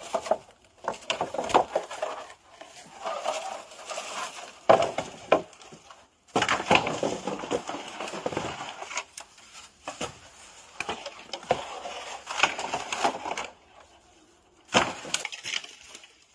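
Dry bamboo litter, leaves and twigs being cleared away by hand at the foot of a bamboo, crackling and snapping in several bursts with short pauses between.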